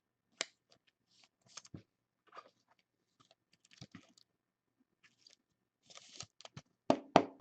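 Trading cards and plastic card holders being handled: scattered light clicks and rustles, with a run of sharper clicks near the end.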